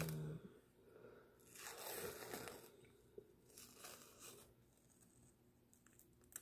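Masque Bar Holographic Foil peel-off mask being pulled off the skin of the face, making soft tearing sounds in a few slow pulls: the longest about two seconds in, two shorter ones around four seconds. A brief strained vocal noise right at the start.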